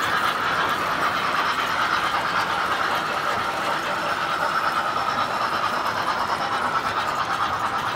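Standard Gauge tinplate toy trains running on the layout track: a steady, even rolling and motor noise from a locomotive and its metal passenger cars passing close by.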